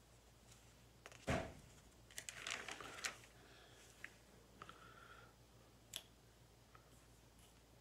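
Handling noises close to the microphone: a thump about a second in, then a short cluster of clicks and rustles, and a single click near six seconds.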